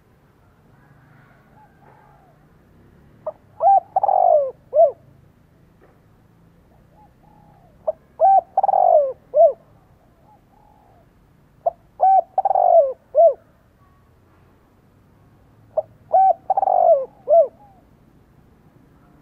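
Caged male spotted dove cooing: four repeats of its coo phrase, each a short opening note and then a longer run of notes, about every four seconds. This is a decoy bird's challenge cooing, used to provoke wild males.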